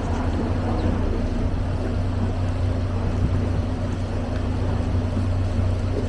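Tour boat's engine running steadily, a low, even drone with a constant hum, over wind and water noise.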